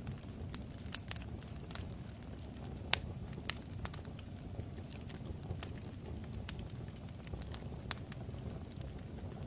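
Fire crackling: a steady low rumble with sharp pops at irregular intervals, the loudest about three seconds in.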